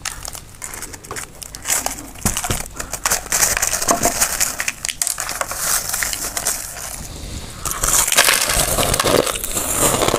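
Crushed ice crackling and clinking as a metal spoon and fingers dig through a bowl of it. The sound is a dense, irregular crackle that grows louder from about eight seconds in.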